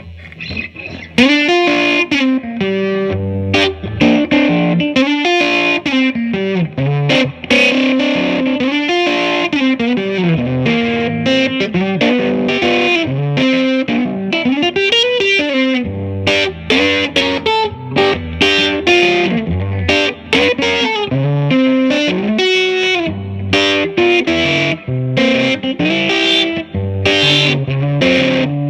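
1957 Gibson ES-225TD electric guitar played through an overdriven Allston valve amp, its volume all the way up with a hint of reverb. Blues-style lead phrases with bent and sliding notes start about a second in and run on in a mild, crunchy overdrive.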